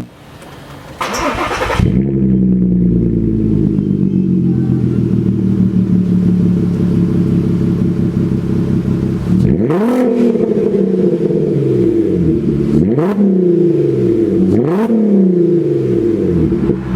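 Volkswagen R32's 3.2-litre VR6 engine through an aftermarket performance exhaust. After a short noisy rush near the start it idles steadily for several seconds, then is blipped about three times in the second half, each rev rising quickly and falling back to idle.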